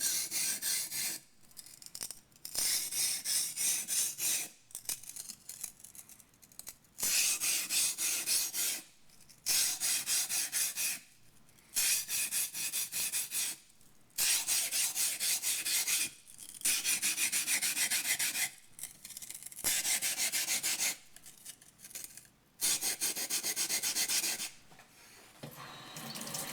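Yanagi knife blade being ground on a muddy, coarse 120-grit waterstone: a wet, gritty scraping in about ten runs of quick back-and-forth strokes, each a second or two long, with short pauses between.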